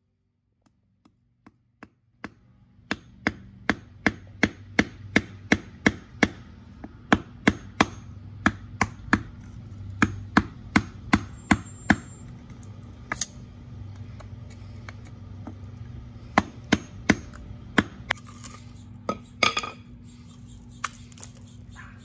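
Steel claw hammer tapping a hand-held chisel against a geode, light, even strikes about two a second to split the stone gently along its seam. The strikes thin out in the second half, with a brief flurry near the end.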